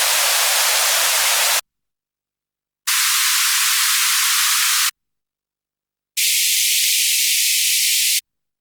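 White noise passed through a high-pass filter, played in three bursts of about two seconds with short silences between, the cutoff stepping up from 500 Hz to 1000 Hz to 2000 Hz. Each burst loses more of its low end and sounds thinner and hissier than the last.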